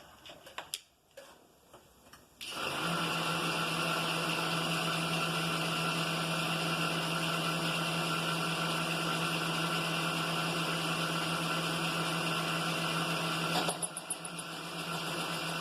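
A milling machine's spindle, fitted with a boring head and bar, is switched on about two and a half seconds in and runs with a steady hum. A few faint clicks come before it starts, and near the end the sound briefly drops and changes.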